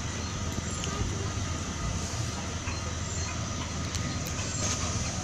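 Steady street traffic noise: a constant low rumble with a few faint clicks.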